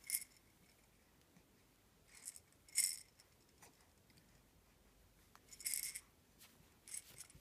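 Clear plastic baby ring rattle with beads inside, shaken by an infant in short, separate bursts, about four times.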